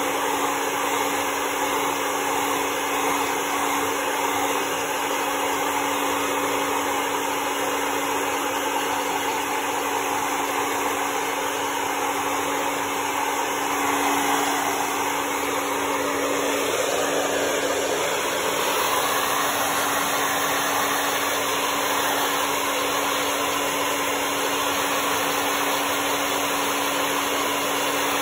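Hair dryer running steadily, blowing air onto a dog's coat, with a steady hum; its tone shifts a little about halfway through.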